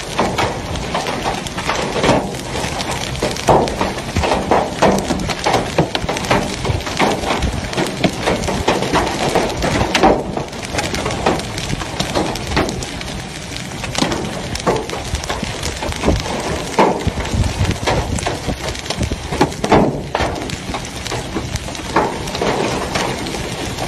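Hail pelting down: a dense, continuous clatter of hailstones striking hard surfaces, many small impacts overlapping with a steady rushing noise underneath.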